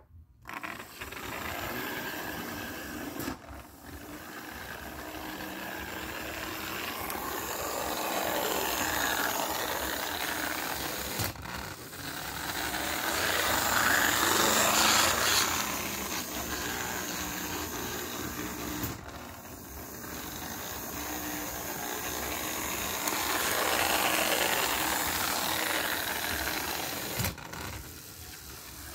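Lionel No. 60 toy trolley car running on model railroad track, its electric motor and gearing whirring. It grows louder as the car comes near and fades as it moves off, three times over. The sound cuts out briefly about every eight seconds.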